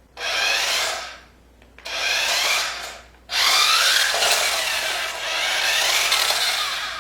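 Small electric drive motor and plastic gears of a remote-control toy truck whirring in three bursts, the last one about four seconds long.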